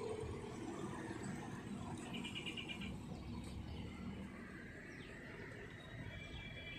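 Birds calling, with a short pulsed chirping trill about two seconds in and a few fainter calls after it, over the low rumble of a small car driving past on the bend.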